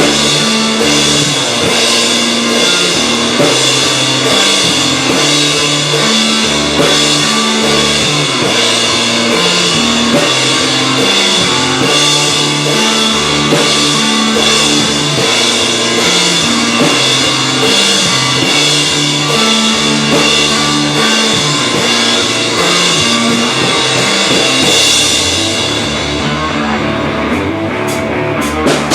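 Rock band playing loud: a drum kit with cymbals, a pulsing bass line and electric guitar. The cymbals drop out for a few seconds near the end, and then the hits come back in.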